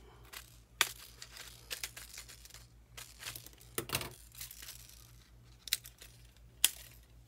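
Hard plastic retail packaging of a fishing lure being cut open and crinkled, with several sharp clicks scattered among the crackling.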